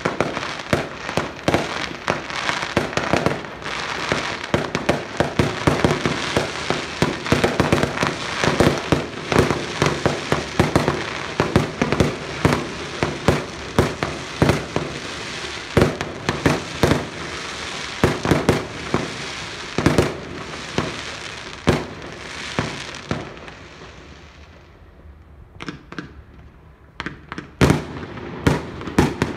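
Fireworks display: a dense barrage of aerial shells bursting in rapid bangs over continuous crackling. It thins to a quieter lull about 23 seconds in, then sharp bangs resume near the end.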